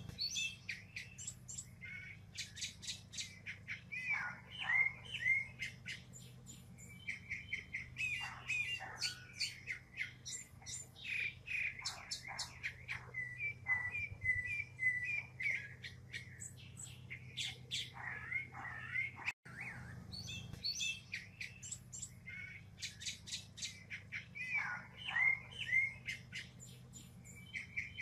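Northern mockingbird singing a long, varied song: phrase after phrase, each repeated a few times in quick succession, some as rapid runs of repeated notes. A faint steady low hum sits underneath.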